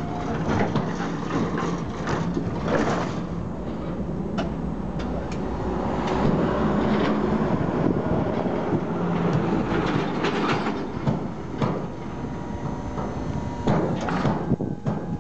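Nichiyu rack forklift working its hydraulics: a steady motor hum under repeated clanks and rattles from the mast and fork carriage as the forks rise.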